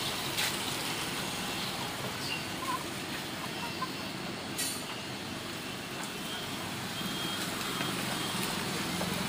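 Steady background road-traffic noise, with a faint high beep now and then and a short crackle about halfway through; a low engine hum grows a little louder near the end.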